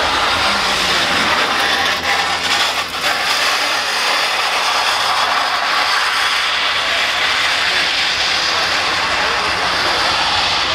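Lowered mini truck dragging its frame on the asphalt: a loud, steady metal-on-pavement grinding scrape, dipping briefly about two to three seconds in.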